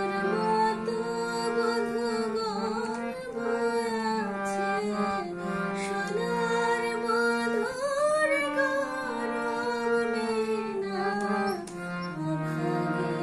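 A woman singing a Bengali kirtan devotional song in long, held, ornamented notes, her voice sliding up to a higher phrase about eight seconds in, over steady instrumental accompaniment.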